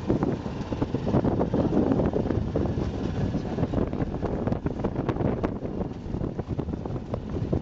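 A work boat's engine running with wind buffeting the microphone, and knocks and rattles as a wet mesh sea urchin cage is hauled over the gunwale onto the deck, most of them about four to five seconds in.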